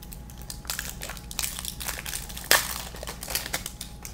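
Clear plastic wrapper crinkling and crackling in irregular snaps as hands tear it off a small plastic blind-pack toy can and open it, with the loudest crackle about two and a half seconds in.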